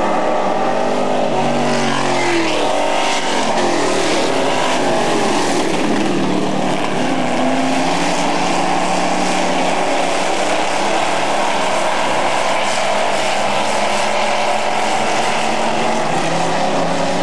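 Several dirt-track super trucks racing, their engines running hard together with overlapping pitches that rise and fall as they circle the track. One truck passes close about two to three seconds in, its note dropping as it goes by.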